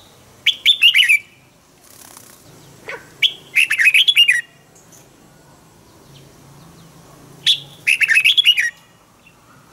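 Red-whiskered bulbul singing three short phrases of quick, sliding whistled notes, each about a second long and roughly three seconds apart.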